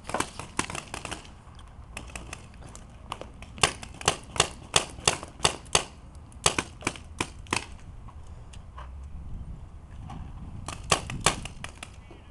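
Paintball markers firing in strings of sharp pops: a quick flurry at the start, a longer run of about three shots a second in the middle, and another short burst near the end.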